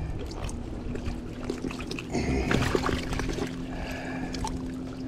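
Water splashing and trickling as a catfish is handled and worked onto a fish stringer in shallow water, with small irregular splashes and drips and a faint steady hum underneath.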